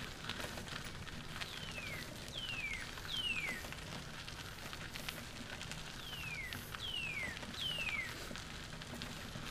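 A songbird calling a series of clear down-slurred whistles, each falling in pitch over about half a second, three in a row and then three more about three seconds later. Under it runs a steady crackling rush from the trike's tyres rolling along the paved trail.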